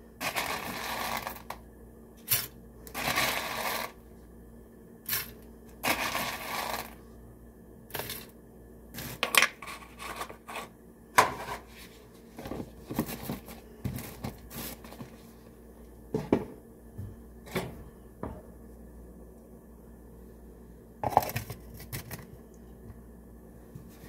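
Whole coffee beans scooped from a plastic tub and poured into an electric coffee grinder's stainless steel cup. Three rattling pours in the first seven seconds, then scattered clicks and taps as more beans drop in.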